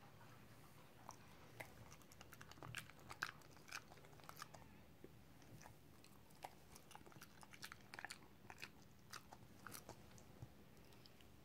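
A small dog eating pieces of banana: quiet, irregular clicks and smacks of its mouth as it chews.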